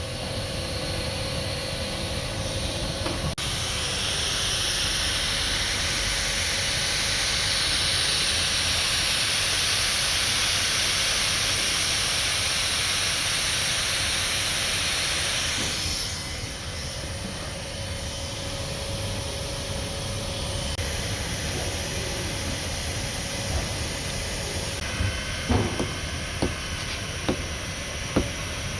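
A steady hiss that swells about three seconds in and cuts off about sixteen seconds in, followed by lower background noise and a few sharp taps near the end.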